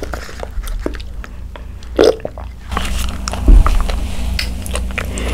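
Close-miked bubble tea being sucked up through a wide straw with its tapioca pearls, then the pearls chewed with wet clicking mouth sounds. A low thump comes about three and a half seconds in.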